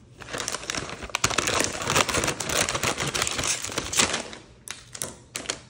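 Kitchen scissors cutting open a crinkly plastic bake-in bag, with the plastic film crackling as it is held and cut. The noise drops away briefly near the end.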